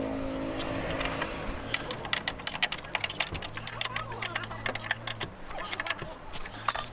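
Metal spanner clicking and scraping on the mounting nuts of a Suzuki Bolan's brake master cylinder as they are tightened, in quick irregular clicks, with the hanging ignition keys jangling. A low hum comes in about halfway through.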